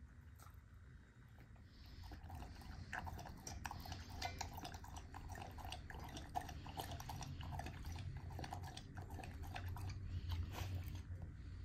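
Dog lapping water from a stainless steel bowl: a fast, steady run of wet laps and tongue clicks that starts about two seconds in.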